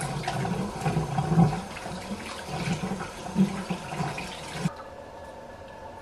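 Kitchen tap running into a stainless steel sink while a gutted brown trout is rinsed under the stream, the water splashing unevenly off the fish and hands. The tap is shut off abruptly about three-quarters of the way through.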